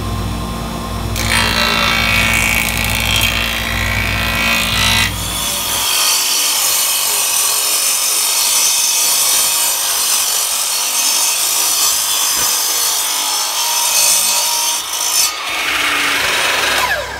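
A thickness planer running with a low hum, cutting through a board for about four seconds. After about six seconds a miter saw runs, cutting short pieces off wood strips, and near the end its motor winds down with a falling whine.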